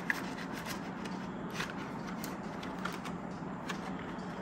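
Polymer banknotes and a clear plastic cash envelope in a ring binder being handled: soft rustling with scattered light crinkles and clicks, over a faint steady hum.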